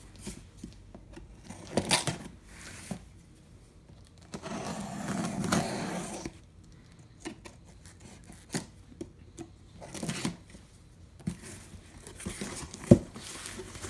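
A cardboard shipping box being opened: packing tape cut and torn, with cardboard scraping and rustling. There is a longer tearing stretch partway through and a sharp knock near the end.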